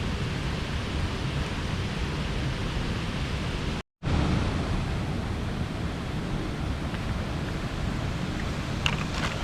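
Steady rush of a mountain stream's flowing water, dropping out completely for a moment about four seconds in, with a few faint clicks near the end.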